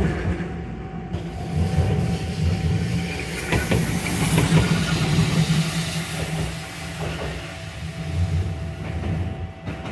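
Randen tram running past on the track, a steady low rumble of wheels and running gear with a few wheel-on-rail clicks about three and a half seconds in, slowly fading as it moves away.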